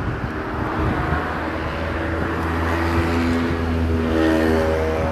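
A motor vehicle passing close by. Its engine hum and road noise grow louder to a peak about four seconds in, then begin to fade.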